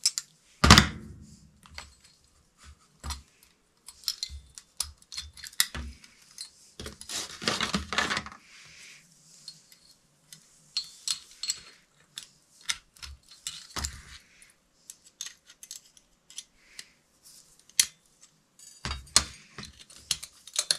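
Handling noise of electrical work: irregular sharp clicks and taps of wire strippers and copper wire against a porcelain light fixture and the work surface, with a stretch of rustling about seven seconds in.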